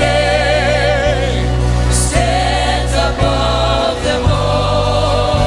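Live gospel worship music: a group of singers holding long notes with vibrato over a church band's steady bass, with a few light drum hits.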